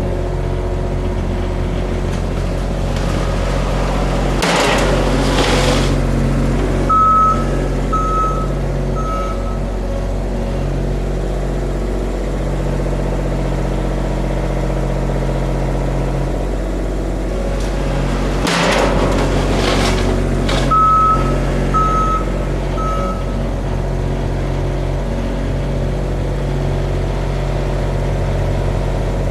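A machine's engine runs steadily, with two brief rushing, scraping noises and, twice, three short beeps of a reversing alarm shortly after each. The machine is a plow vehicle making passes with a UHMW polyethylene plow cutting edge.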